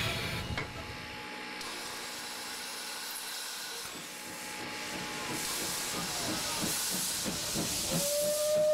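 Steam hissing from standing Südbahn steam locomotives, with the cylinder drain cocks blowing off steam in pulses. About 8 seconds in, a steam whistle starts a steady blast, signalling the start.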